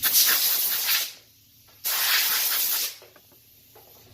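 Two bursts of hissing, each about a second long, with a short gap between them.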